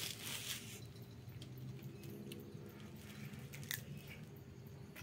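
A cat chewing and biting at scraps of food: a longer burst of chewing at the start, then a few separate bites.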